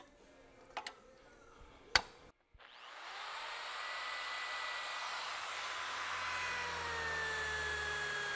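A sharp click about two seconds in. Then a corded electric drill spins up and runs steadily, drilling a hole through a steel axle mounting pad. Its whine sags slightly in pitch over the last second or so.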